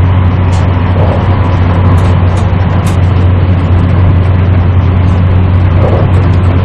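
Steady running noise of a passenger train travelling at speed, heard from inside the carriage: a loud, unbroken low hum under an even rumble, with scattered faint ticks.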